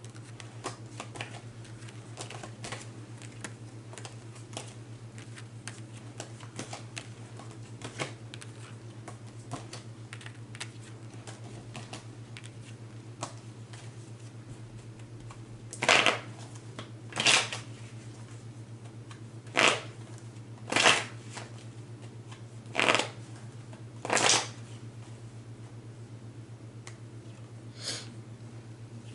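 Tarot cards being handled and shuffled: light clicks and taps of cards through the first half, then six short shuffling bursts a second or two apart, and a fainter one near the end. A steady low hum runs underneath.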